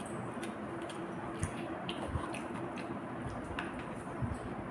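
A person chewing a mouthful of fried chicken close to the microphone: soft wet mouth sounds with scattered small clicks, over a faint steady hum.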